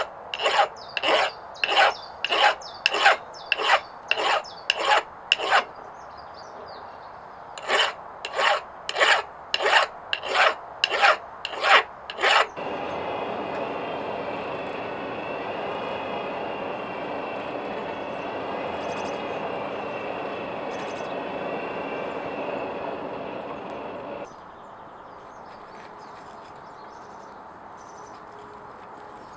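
A file stroked across steel by hand, about one and a half scraping strokes a second, with one short pause. Partway through, the filing stops and a steady sound with a faint hum runs for about twelve seconds before it cuts off.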